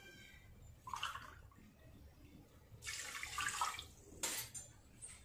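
Water poured from a steel cup into an aluminium pressure cooker of washed rice, splashing for under a second about three seconds in. A short knock comes just after, with a smaller sound about a second in.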